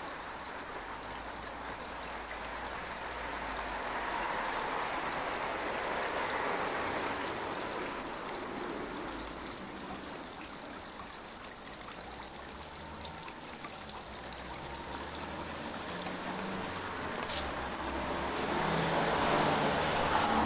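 A steady rushing noise that swells and fades slowly, with a low hum underneath.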